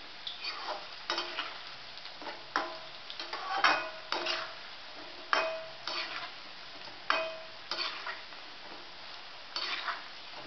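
A metal slotted spoon scraping and clinking against a metal kadhai about once a second, some strokes briefly ringing, as besan pakoras are turned in hot oil over a faint steady sizzle of deep-frying.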